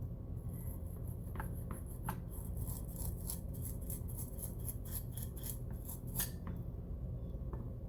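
Soldering iron tip being scraped clean: a run of short, scratchy strokes over a few seconds, then stopping.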